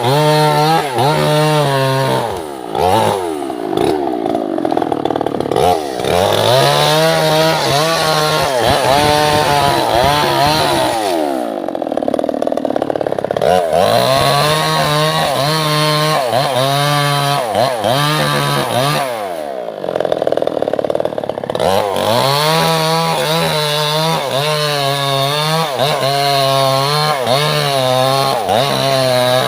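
Two-stroke chainsaw running at high revs and cutting wood, its pitch wavering as the chain bites and loads the engine. Three times it drops back briefly with a falling pitch before revving up again for the next cut.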